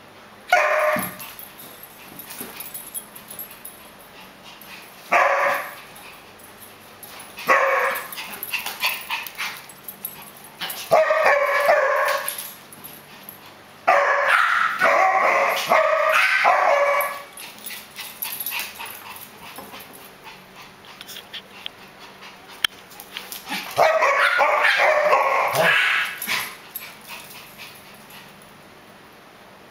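Dogs barking in bursts while playing rough. There are six bouts of one to three seconds each; the longest comes about halfway through.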